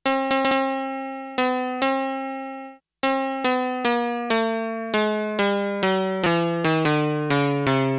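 MFB-501 Pro drum machine playing its lo-fi sampled piano sound, which the uploader read is the Korg M1 piano, as short repeated notes. After a brief break about three seconds in, the notes come about three a second, each lower in pitch than the one before, as the sample's tuning is turned down.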